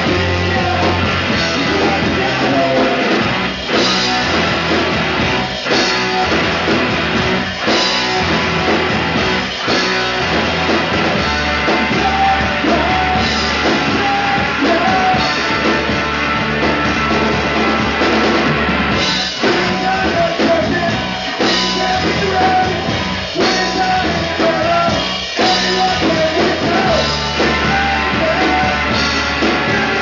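Rock band playing live, a drum kit keeping a steady beat under amplified instruments, with a singer's voice.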